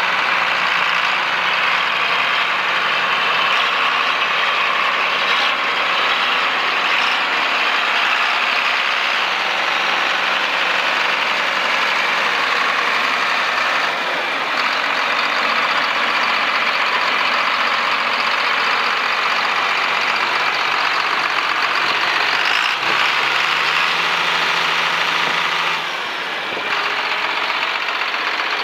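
John Deere 4955 tractor's six-cylinder turbo diesel engine running steadily, at first while the tractor drives, then heard close to the engine. Its low tone shifts about halfway through and again near the end.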